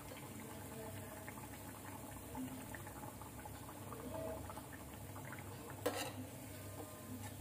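A malpua frying in ghee on medium-low heat, the ghee bubbling and sizzling faintly around it. A single sharp click comes about six seconds in.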